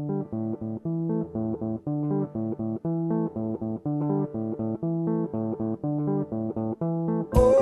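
Background music: a riff of short plucked notes repeating steadily. Near the end a full band with drums comes in, louder.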